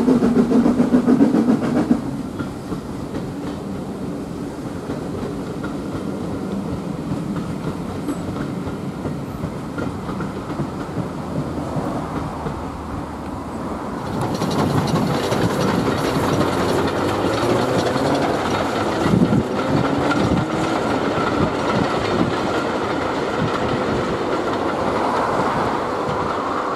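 Railway passenger coaches rolling along jointed track, wheels clattering over the rail joints. The sound drops back after the first couple of seconds and rises again about 14 s in as another train of coaches passes.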